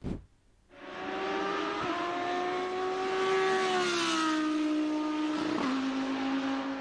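Lamborghini Huracán GT3 race car's V10 engine running at high, fairly steady revs; the pitch sags about four seconds in and steps down again near the end before the sound cuts off.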